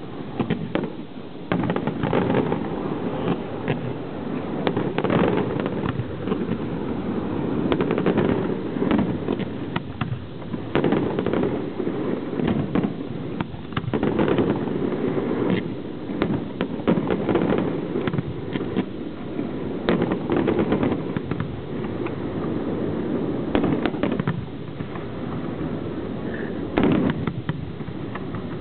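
Aerial fireworks display going off continuously: rapid, overlapping bangs and crackling shells over a dense rumble of launches and bursts, with no pause.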